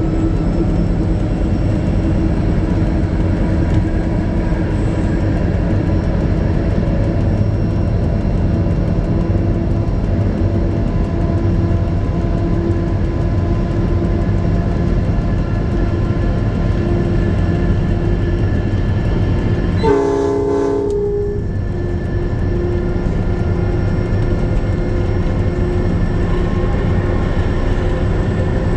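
Diesel locomotive working as a bank engine, its engine running steadily with a deep drone. A short horn blast of about a second sounds roughly two-thirds of the way in.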